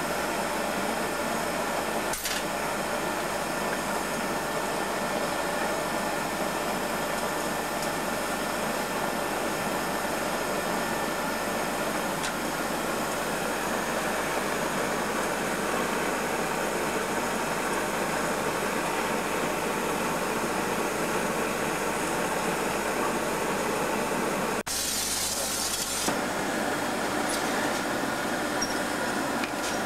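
Steady noise of a glass furnace's burner and blower running in the workshop, without changes in pitch. A short, brighter hiss cuts in about 25 seconds in.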